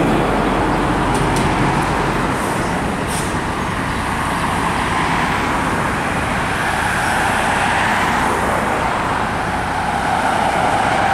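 Diesel engine of a Mack rear-loader garbage truck running steadily at the curb, with cars passing close by and their tyre noise swelling and fading.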